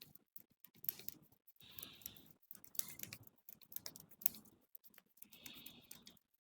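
Hands massaging a head: fingers rubbing and scratching through hair and scalp, a dense crackle of small clicks. Twice, about three and a half seconds apart, a longer noisy swell of slow breathing.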